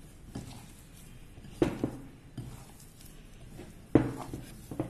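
A hand pressing and kneading cookie dough in a glass bowl, with a few sharp knocks against the glass; the two loudest come about a second and a half in and about four seconds in.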